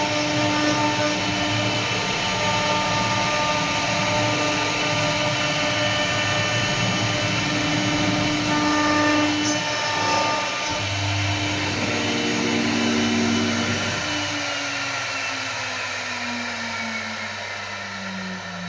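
CNC wood router spindle whining steadily as it carves wood. About fourteen seconds in its pitch falls steadily and the sound fades as the spindle slows down.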